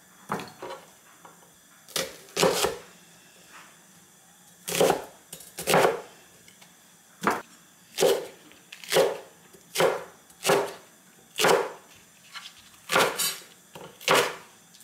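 Cleaver chopping onion and then green onions on a bamboo cutting board: single sharp knocks of the blade on the board, irregular at first, then roughly one a second.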